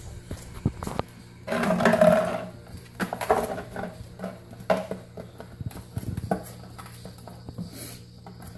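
Five- to six-week-old puppies scuffling on a tile floor: scattered clicks and knocks of claws and a plastic bottle being pushed about. A puppy lets out a loud cry for about a second, about a second and a half in.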